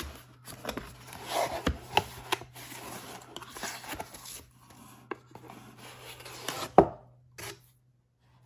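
Cardboard packaging being handled: a kraft cardboard box slid open and a foam-wrapped box drawn out, with rubbing and scraping and several light knocks. A sharper knock comes near the end.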